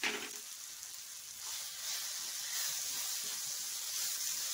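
Onion and tomato masala with cumin and fennel seeds sizzling in oil in a frying pan, the sizzle getting louder about a second and a half in as the mixture is stirred.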